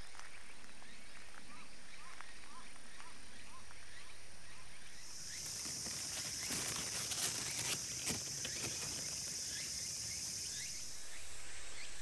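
Outdoor ambience with a few faint chirps, then about five seconds in a high, steady insect drone starts and holds for about six seconds before cutting off, with a few short clicks over it.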